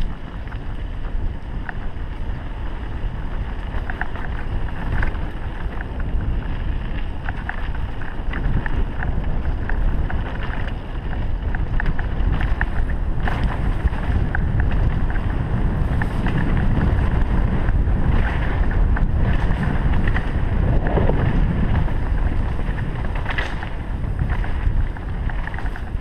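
Wind buffeting the microphone while a mountain bike rolls fast down a dirt trail, with tyre noise and rattles and knocks from the bike over bumps. It grows louder about two-thirds of the way through.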